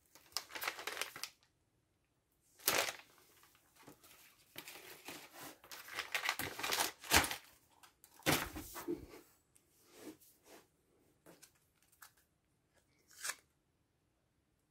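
MRE ration packaging being crinkled and torn open by hand, in irregular bursts with short pauses.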